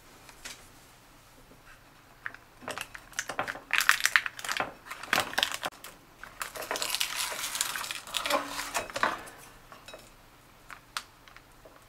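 Disposable paper microwave fish-cooking tray being handled and opened, with crackly crinkling and rustling in irregular bursts for several seconds, then stopping near the end.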